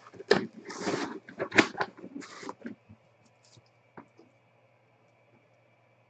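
Black wrapping inside a cardboard trading-card box rustling and crinkling in a few short bursts as hands dig through it. The rustling stops about halfway through and is followed by near quiet, with one faint click.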